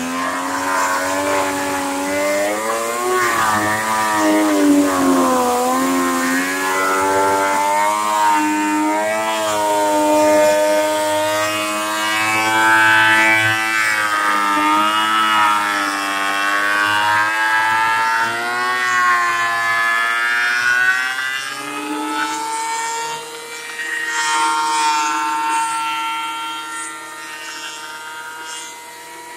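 Ridgid benchtop thickness planer's motor and cutter head running under load as an old thick board feeds through, with a whine that wavers in pitch as the blades bite. About 22 seconds in the pitch steadies and rises, and the sound fades toward the end.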